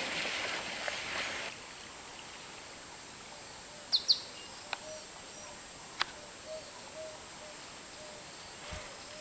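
Bush ambience with birds calling: a pair of quick high chirps about four seconds in, a couple of sharp clicks, and a soft low call repeating about once a second over a steady background hiss. Music fades out in the first second and a half.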